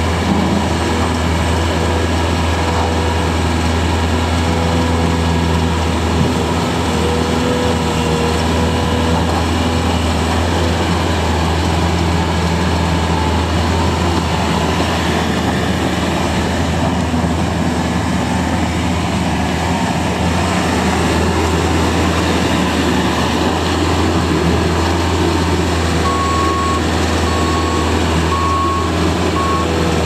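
Bobcat S530 skid steer loader's diesel engine running steadily as the machine drives over gravel. Near the end its backup alarm beeps about four times as it reverses.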